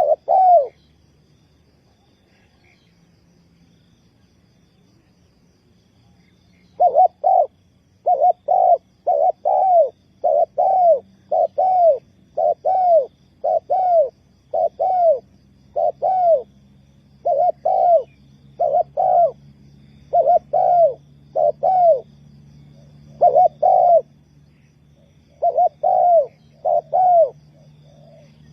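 Spotted dove cooing: repeated short, arched coo notes in groups. A pause of several seconds comes early, then the cooing resumes about seven seconds in and keeps on steadily.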